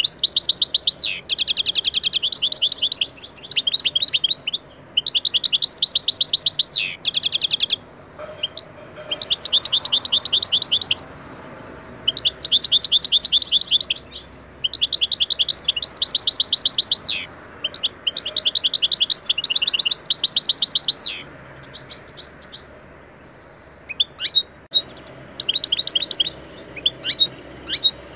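European goldfinch singing in its cage: phrase after phrase of rapid high trilled notes, each a couple of seconds long with short pauses between, breaking into scattered short twitters near the end.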